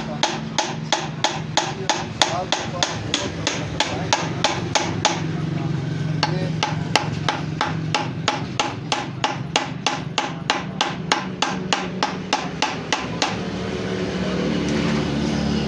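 Rapid, evenly spaced hammer blows, about three a second, driving a stuck overdrive gear hub off the shaft of a Toyota Corolla 1.5 manual gearbox without a puller. The blows stop briefly near the end, then start again.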